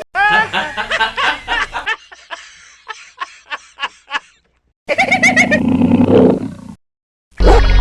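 A string of separate sound-effect clips cut back to back: first animal-like calls, then a run of about nine short sharp strokes that fade, then a louder animal-like roar. Music starts abruptly near the end.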